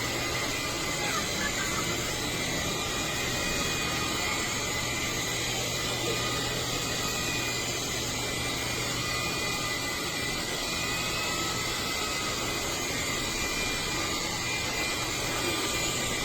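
Dreame R20 cordless stick vacuum running steadily, its motor giving a constant rushing sound with a steady high whine.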